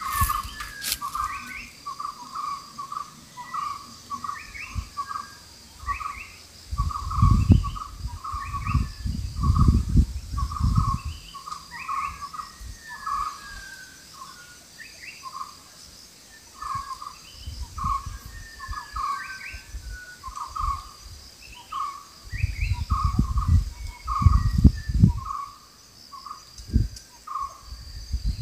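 Birds calling outdoors: a short call repeated about twice a second, with higher chirps over it. Two stretches of loud low rumbling noise break in, one about a quarter of the way in and one near the end.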